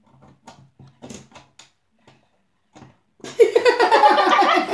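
A few faint scrapes and clicks of a knife cutting into a plastic toy, then two girls laughing loudly from about three seconds in.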